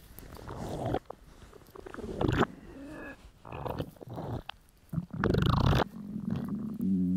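A hungry, empty stomach rumbling and gurgling in irregular bursts, loudest about five seconds in, ending in a low drawn-out growl.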